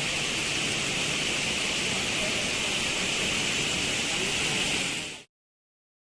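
Steady rushing roar of a waterfall, even and unbroken, cutting off abruptly to silence about five seconds in.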